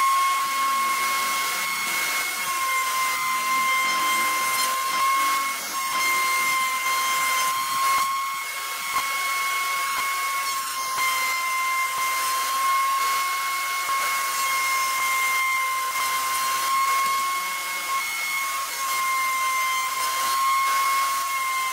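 Router mounted under a bench top running at a steady high-pitched whine with a hiss as strips of wood are fed past the bit. The whine dips slightly a few times.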